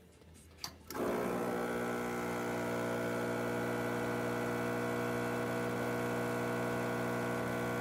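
Vibiemme espresso machine's pump switching on about a second in and running with a steady hum while pulling a test shot, after a new vacuum release valve, group gasket and shower screen.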